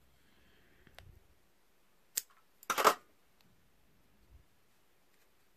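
A few sharp scissor clicks as a small piece of craft foam is trimmed. About three seconds in there is a short, louder clatter as the scissors are set down on the work table.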